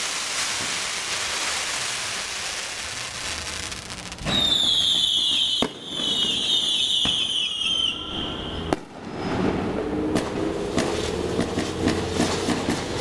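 Street fireworks. A fountain firework hisses steadily, then about four seconds in loud falling whistles from whistling fireworks set in for several seconds, with two sharp bangs. Rapid crackling follows near the end.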